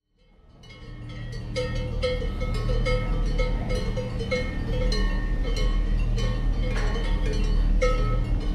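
Cowbells clanking irregularly, several strikes a second with a ringing metallic tone, over a low steady rumble; the sound fades in at the start.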